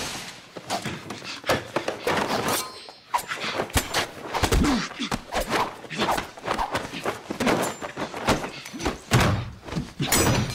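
Movie fight-scene audio: a rapid, irregular run of punches, thuds and slams as two men brawl hand to hand and crash into doors and walls.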